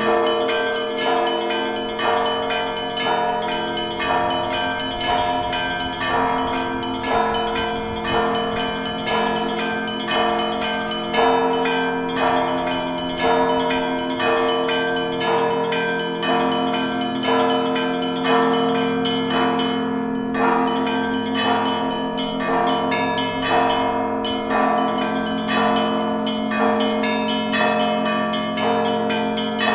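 Russian Orthodox church bells ringing a continuous peal (zvon): many small bells struck in a quick, even rhythm over a deep bell's hum, with strong strokes about once a second.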